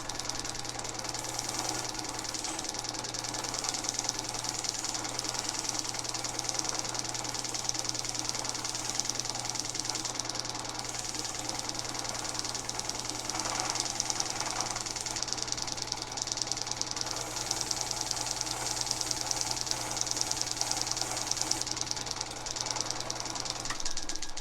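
Electric grinder with a wire wheel running steadily, its wire bristles scrubbing crud and old finish off a cast-iron vise; the motor hums under a harsh high hiss. It shuts off near the end.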